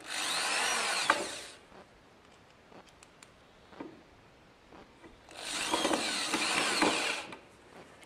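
Handheld electric drill run twice into the corner joint of a wooden frame, each run about two seconds long, its motor pitch rising and falling. Between the runs there are a few faint knocks.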